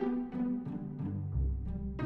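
Background music: a rhythmic instrumental track of quick plucked notes over deep bass notes.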